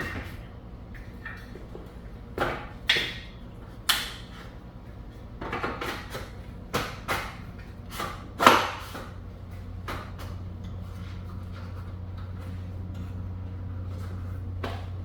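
Scattered knocks and clacks of gun vise parts being handled and fitted together, about ten of them, the loudest about eight and a half seconds in, over a low steady hum.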